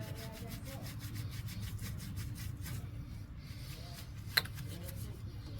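Hand scrubbing grease off a car wheel in quick, repeated rubbing strokes that ease off after about three seconds, with a single sharp click about four seconds in.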